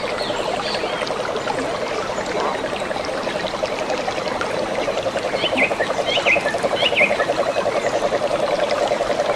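Stream water trickling, with frogs calling in a steady, rapidly pulsing chorus that grows more regular after about five seconds. A few short bird chirps come between about five and seven seconds in.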